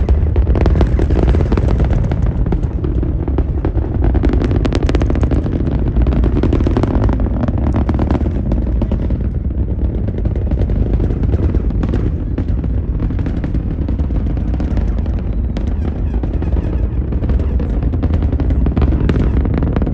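Falcon Heavy rocket's 27 Merlin engines during ascent, heard from the spectator area: a loud, continuous deep rumble shot through with dense, rapid crackling.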